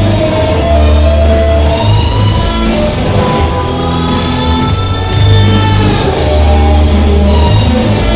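Hard rock wrestling entrance-theme music with electric guitar and drum kit, its bass heavily boosted into loud, long held low notes.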